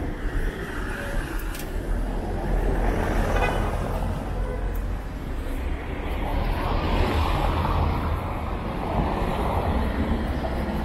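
Cars driving past on a wet street over a steady low rumble, their sound swelling a few seconds in and again through the second half.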